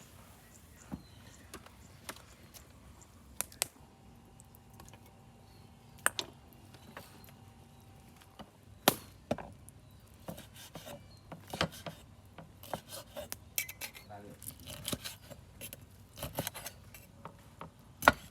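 Kitchen utensils clicking and knocking during food preparation: sharp, irregular taps, a few at first and coming faster in the second half.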